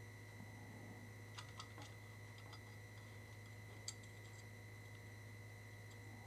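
Near silence over a steady low hum, with a few faint light clicks and ticks from fingers handling a wire and parts on a circuit board, the sharpest about four seconds in.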